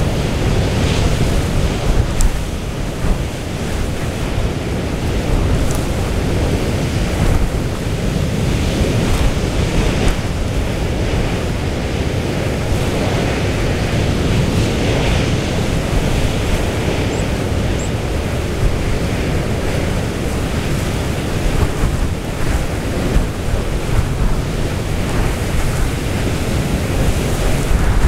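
Storm wind buffeting the microphone, over the rush of a rough, breaking sea.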